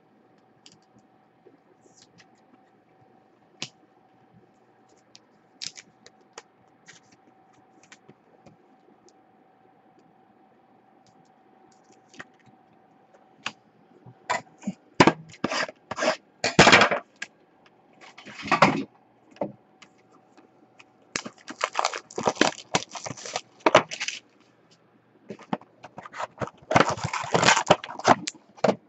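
Plastic card packaging being handled, crinkling and scraping in bursts through the second half. Before that comes a quiet stretch with a faint steady hum and a few light clicks.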